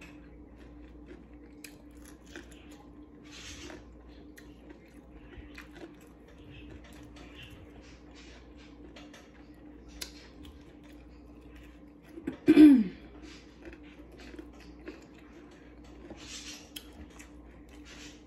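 A person chewing and biting into fried chicken, with small crunches and mouth clicks over a steady low hum. About twelve seconds in comes one loud, short squeal that falls steeply in pitch.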